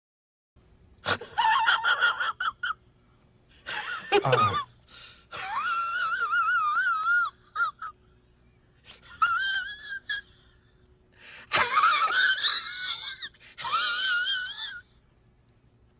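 Comedy sound effect of high-pitched, wavering wheezing wails, in about six goes with short gaps between; one about four seconds in slides steeply down in pitch.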